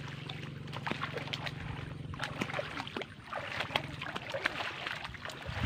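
Footsteps wading through shallow floodwater, with irregular small splashes and sloshes as feet lift and drop in the water. A low steady hum sits underneath for the first half.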